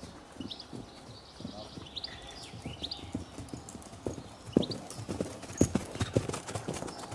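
Hoofbeats of a young grey Lusitano horse moving at trot and canter on the lunge over arena sand, a run of dull thuds. They grow loudest about two-thirds of the way through as the horse passes close by.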